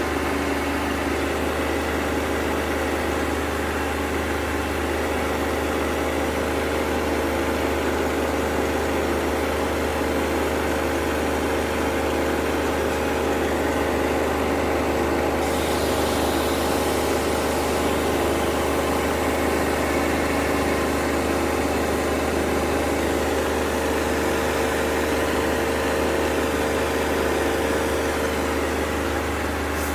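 ASKO W6564 washing machine in its high-speed spin cycle: a steady motor whine over a low hum. About halfway through, a higher hiss comes in.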